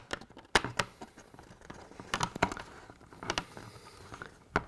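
Scattered, irregular light clicks and taps of plastic kit parts being handled: a thin plastic liner being flexed and pushed into the grooves of a Peco plastic viaduct arch, snagging on the small locating lugs.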